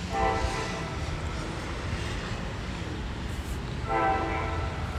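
An NJ Transit train horn sounds two short blasts about four seconds apart, each a chord of several tones. A steady low rumble runs underneath.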